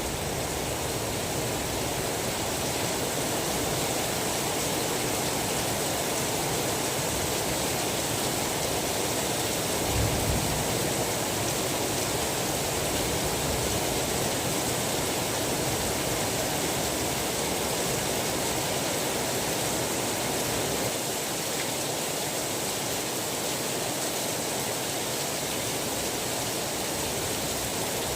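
Steady rain falling, an even hiss with no break. About ten seconds in there is a brief low rumble.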